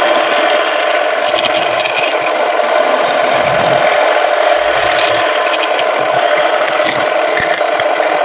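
A wood lathe is running while a hand-held turning tool made from a piece of scrap sickle iron scrapes and cuts the end of the spinning wooden workpiece. The cutting makes a continuous rasping scrape over a steady hum.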